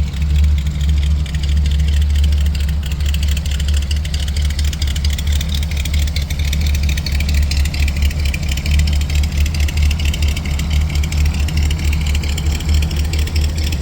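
Car engine idling steadily with a deep, pulsing rumble.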